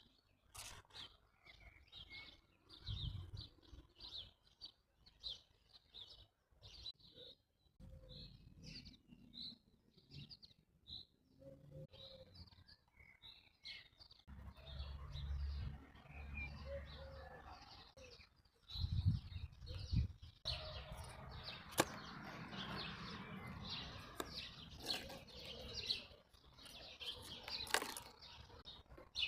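Small birds chirping in many short, high calls, with occasional low rumbles underneath.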